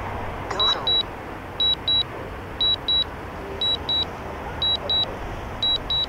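Drone remote controller's warning alarm: a high double beep repeating about once a second, signalling a weak controller link as the drone flies back on return-to-home.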